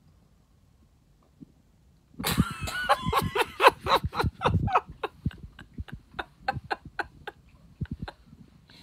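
A woman bursts into loud laughter about two seconds in, then trails off into a long run of short laughs that grow fainter.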